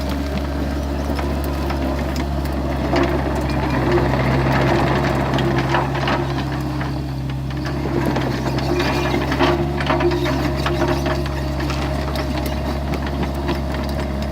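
Excavator's diesel engine running steadily under load, with scattered clanks and knocks from the machine at work.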